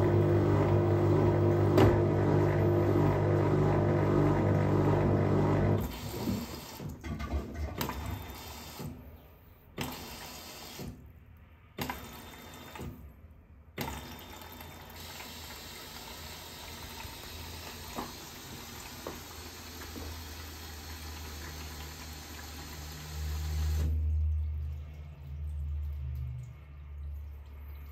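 Fisher & Paykel WL8060P1 top-load washing machine mid-cycle: a loud, steady machine hum with water running stops suddenly about six seconds in. Quieter water noise follows, with a few short low hums from the machine near the end.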